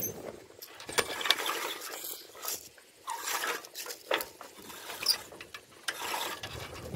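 Irregular light clicks and knocks of sailboat rigging hardware at the mast.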